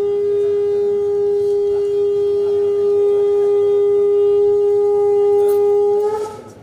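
Conch shell (shankha) blown in one long, steady note, sounded for a ceremonial lamp lighting; the note lifts slightly and stops about six seconds in.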